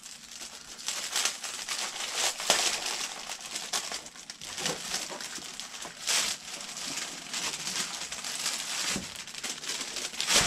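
Clear plastic wrapping crinkling in irregular bursts as it is handled and pulled off a stack of paper plans, the loudest crackles about six seconds in and near the end.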